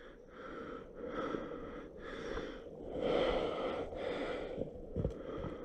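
A person breathing hard, about one breath a second, while running, with a low thump near the end.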